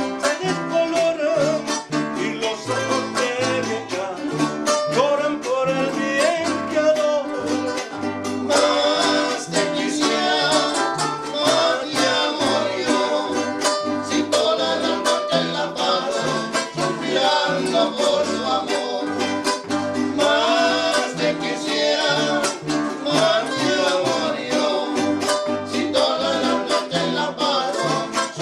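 A small string group plays live: a guitarrón plucks a stepping bass line under two small strummed guitars, while the men sing.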